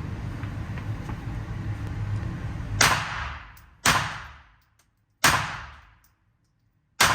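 Handgun firing four shots about a second apart, starting about three seconds in, each shot followed by a short fading echo. Before the shots, a low steady rumble.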